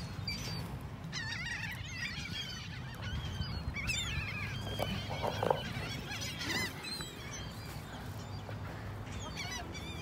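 A flock of seagulls being hand-fed, calling over and over with many overlapping short cries.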